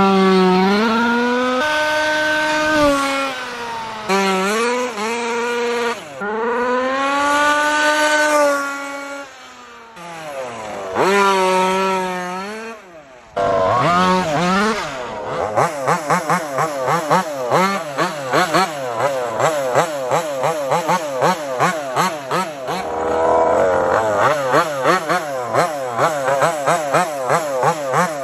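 Taylor RC 35cc two-stroke gas engine of a 1/5 scale MCD XS5 Max RC car, revving up and down in long sweeps as the car drives. About halfway through, the throttle is blipped rapidly, the engine rising and falling two to three times a second.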